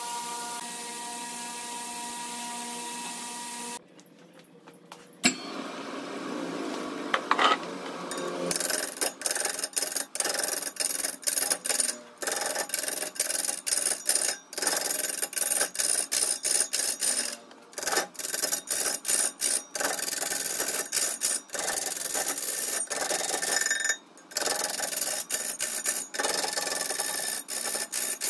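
Wood lathe running with a steady, humming tone, then, after a short drop about four seconds in, a tool scraping against the spinning wood: a harsh, loud rasping broken by many short gaps.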